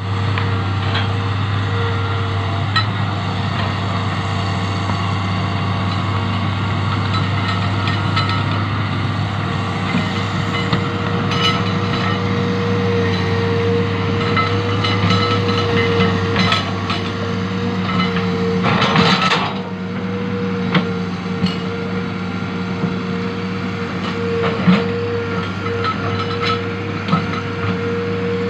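Hitachi ZX200 excavator's diesel engine running steadily, with a constant whine over the low drone. Scattered clicks and knocks, and a short hiss about two-thirds of the way in.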